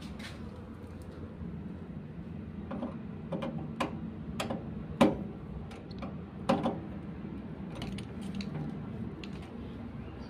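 Scattered clicks and knocks of a screwdriver and cables being worked at an inverter's terminals, the two loudest about halfway through, over a steady low hum.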